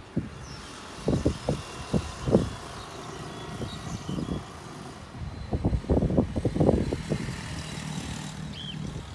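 Irregular low rumbling thumps of wind buffeting an outdoor microphone, heaviest in two clusters about a second in and around the middle. There is a faint short high chirp near the end.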